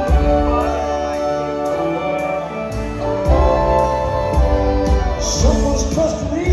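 Live rock band playing the instrumental opening of a song, heard from the audience in a large hall: held chords, with the bass and drums coming back in about three seconds in.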